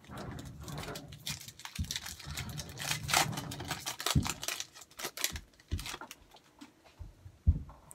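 Football trading cards being handled and slid against one another: quick papery clicks and rustles, with a few soft knocks against the table.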